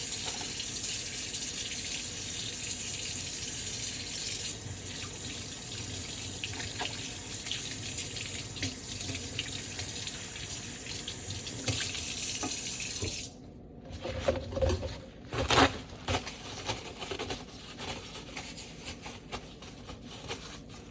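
Tap water running into a sink while hands are washed, the stream's sound changing about four seconds in. The tap shuts off about two-thirds of the way through, and a few brief rustles and sharp knocks follow.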